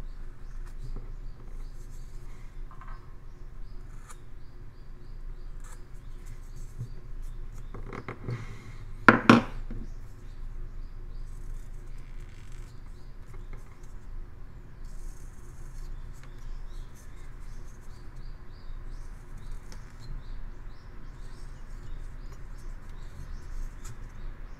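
Carving knife slicing and paring a basswood block by hand: faint crisp cuts and scrapes. A brief, much louder knock about nine seconds in.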